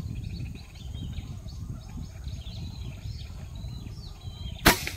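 Birds chirping in short calls over a steady low rumble, then about four and a half seconds in a single sharp crack of an air rifle shot.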